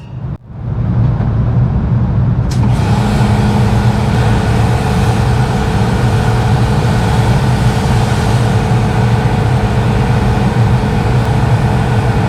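A machine running steadily with a strong low hum, starting about half a second in, with a hiss joining about two and a half seconds in.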